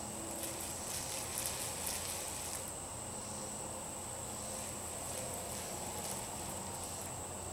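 Paint roller laying DuraTex roller-grade texture coating onto a speaker cabinet, a faint soft crackle, over a steady high-pitched tone and a low hum.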